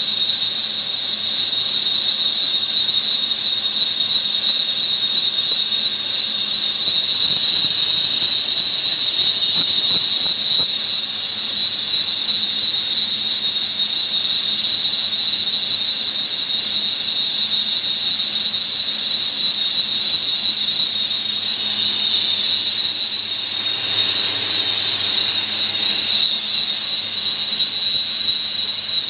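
Lathe running through a turning cut, with a steady high-pitched squeal over the machine's noise.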